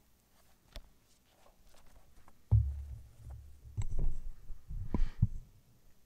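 Microphone handling noise: a sudden low thump about two and a half seconds in, then a low rumble with several sharp clicks and knocks.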